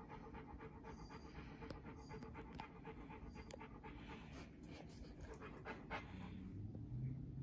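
A dog panting rapidly and evenly.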